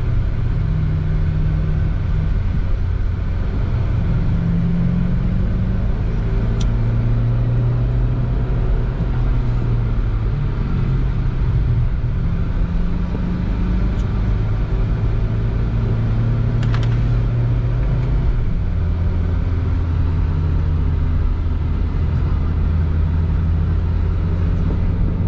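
Suzuki Vitara's diesel engine and road noise inside the cabin while driving at low speed. The engine drone shifts in pitch a few times and settles lower about three quarters of the way through.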